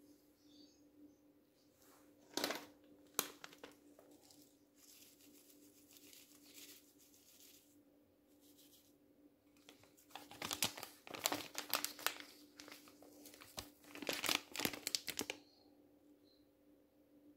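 Spice packets crinkling and rustling as they are handled, torn open and shaken out over a bowl. The sound comes in a few short crackles, then a longer, louder run in the second half. A faint steady hum lies underneath.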